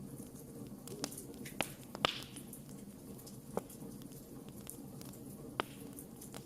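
Wood fire burning in a fireplace: a low steady rush of the flames with scattered sharp crackles and pops. The loudest pop comes about two seconds in, with a brief hiss after it.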